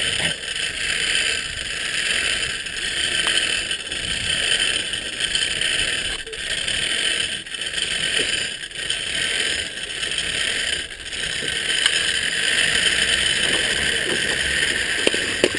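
Zip-line trolley pulleys rolling along the steel cable with a steady whirring hiss as the stalled rider is hauled in to the platform, the level dipping slightly every second or so.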